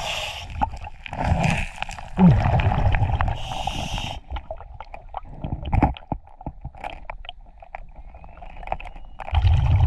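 Underwater scuba breathing: the regulator's exhaled bubbles burble in bursts through the first few seconds and again near the end. Between them come scattered short clicks and knocks of a metal tool and gravel against the bedrock crevice.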